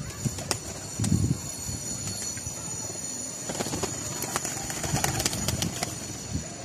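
Domestic pigeons cooing in low pulsing calls, about a second in and again around five seconds, with scattered sharp clicks and a short wing flap near the end.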